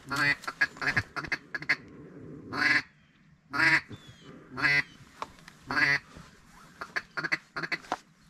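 Duck call blown to lure ducks in: a series of loud quacks about a second apart, then a quick run of short clucking notes near the end.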